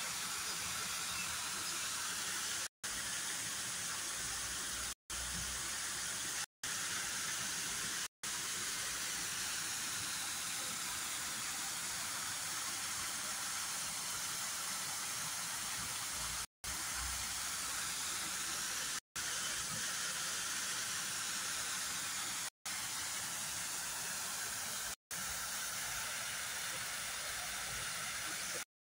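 Steady high-pitched hiss of park ambience, broken every few seconds by brief silent gaps where short clips are joined, and cutting off just before the end.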